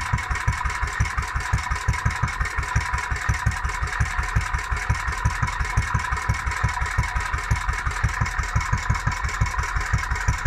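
Vintage 1945 single-cylinder stationary engine of a milking-machine outfit, running steadily with an even, rapid exhaust beat and a steady high hum over it.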